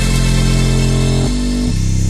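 Electronic music laid over the footage: held bass notes that shift pitch twice, with the drum beat dropped out.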